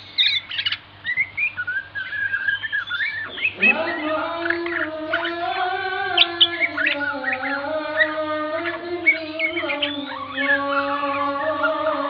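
Songbird chirps and short whistled song phrases. About three and a half seconds in, a sustained, slowly wavering low tone with overtones joins them.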